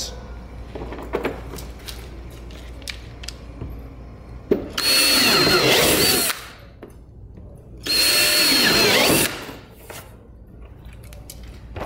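Cordless drill boring 3/8-inch holes through a plastic kayak hull: two runs of about a second and a half each, starting about four and a half and eight seconds in, each with a steady motor whine. Light handling clicks come before the drilling.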